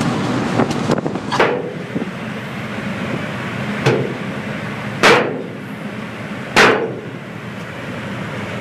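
Steady road and engine noise inside a moving Dodge Dakota pickup's cab, broken by four sharp knocks spread through it, the last two loudest.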